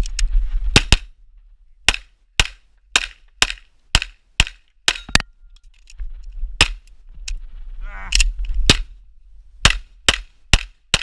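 Pistol shots fired in quick succession at about two a second, roughly sixteen in all, heard close up from the shooter's own gun. There is a pause of a couple of seconds near the middle.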